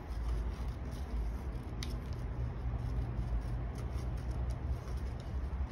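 Scissors snipping through paper, a few short quiet cuts, over a steady low hum.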